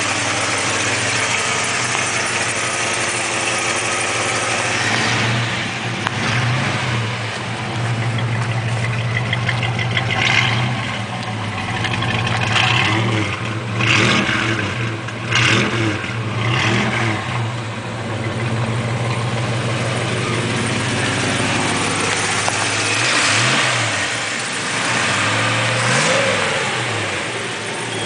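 1954 Chevrolet 3100 pickup's 283 small-block V8 idling steadily, revved in short blips several times in the middle and twice more near the end.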